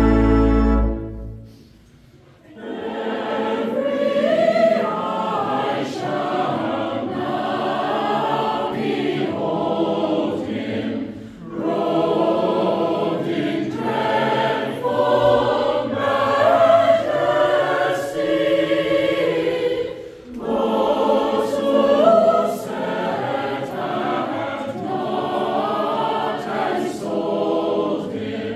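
A held chord with a deep brass bass dies away in the first two seconds. Then a mixed church choir sings a hymn verse in three long phrases, each followed by a short pause for breath.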